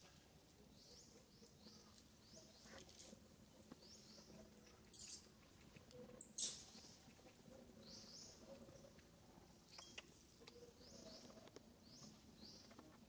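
Faint, high-pitched chirps repeating about once a second, each rising quickly in pitch. Two brief rustling noises come about five and six seconds in.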